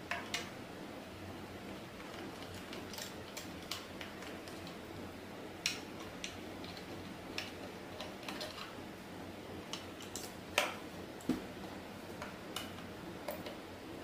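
Small hand tools, a hex key and a screwdriver, clicking and tapping against screws and a metal cover plate on a plastic machine housing: scattered sharp ticks at irregular intervals over a steady low hiss, one louder click near the middle.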